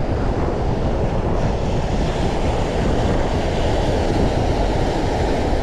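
Wind rumbling on the microphone over the steady wash of choppy ocean waves around a kayak.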